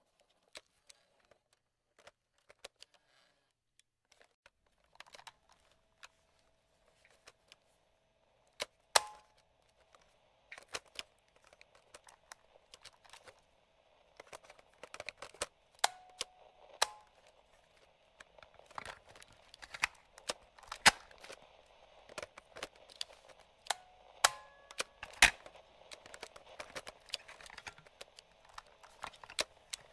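Plastic switches and slide controls on a vintage radio and portable cassette recorder, clicked and pushed over and over: sparse at first, denser and louder later. From about a third of the way in, a faint hum and light static hiss runs behind the clicks.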